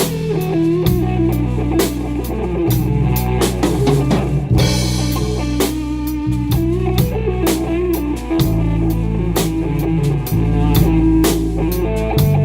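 A band playing: a drum kit keeping a steady beat under guitar, with sustained low notes.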